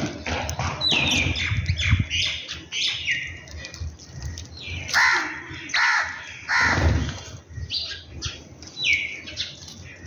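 Birds calling in a yard: many short chirps from house sparrows, some calls sliding down in pitch, and louder calls bunched around the middle.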